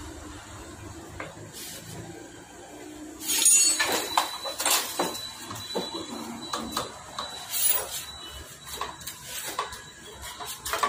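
Metal scraping, clinking and knocking as a motorcycle's front fork tube is pushed up into its clamps after new oil seals were fitted. The handling noises start about three seconds in: a quick run of sharp clinks and rattles, with a few louder knocks.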